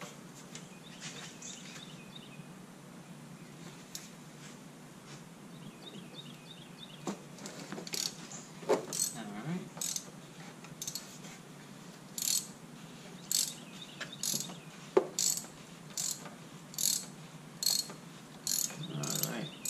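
Hand socket ratchet clicking as it turns and loosens the oil filter housing cap on a BMW E90's engine. Faint at first; from about eight seconds in, a short burst of pawl clicks comes with each return stroke, about one a second.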